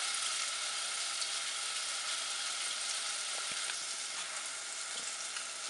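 Ground poppy seeds and mustard sizzling steadily in hot oil in a nonstick saucepan.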